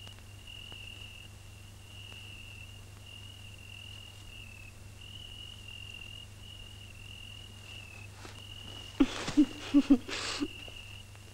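A cricket trilling steadily at one high pitch over a low steady hum. About nine seconds in there is a short, choppy burst of laughter.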